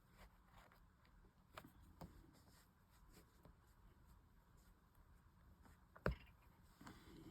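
Faint hand-sewing sounds: soft scattered ticks and rustles of a needle and thread being worked through a leather handle, with one sharper click about six seconds in.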